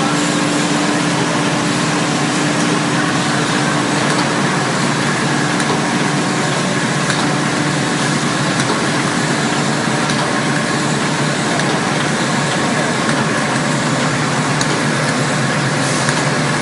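Automatic facial tissue packing machine and the surrounding tissue production machinery running: a loud, steady mechanical din with a hum that fades after the first few seconds and a few faint clicks.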